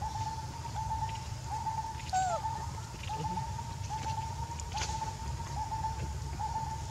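A bird calling over and over in short, quick groups of high notes, a little more than one group a second, over a low steady outdoor rumble. About two seconds in there is a louder falling squeak.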